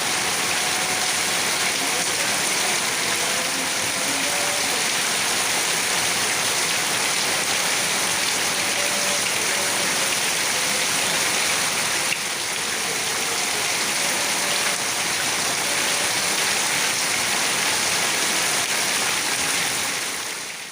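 Heavy rain falling steadily, a dense even hiss, dropping slightly in level about twelve seconds in and fading out at the very end.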